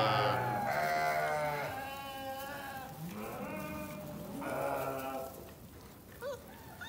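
Goats bleating: four wavering, quavering calls of about a second each, the last one ending about five seconds in.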